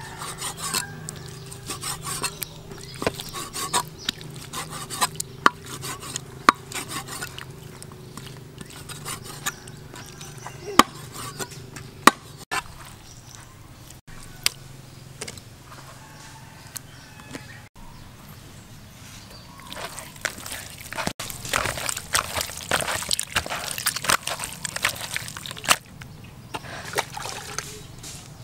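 Cleaver chopping raw pork large intestine on a wooden chopping block: sharp knocks at irregular intervals over a steady low hum. Near the end comes denser wet handling and splashing of the intestine pieces.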